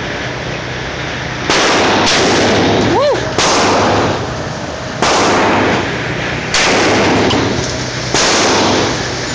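AR-15 rifle in 5.56/.223 with a 16-inch barrel fired shot by shot in an indoor range: six single shots, spaced roughly one to one and a half seconds apart, each trailed by echo off the range walls.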